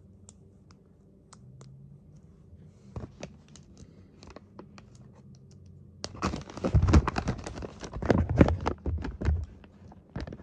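Small plastic Lego pieces being handled and fitted together: scattered light clicks, then from about six seconds in a dense run of clicking, rustling and knocking close to the microphone.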